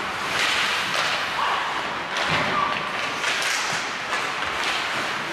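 Ice hockey play: skates scraping on the ice, with several knocks and thuds of puck and sticks against the boards.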